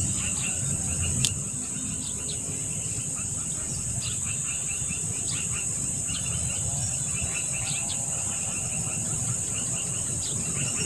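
Steady high-pitched buzz of insects, with short repeated chirps lower down and a single sharp click about a second in.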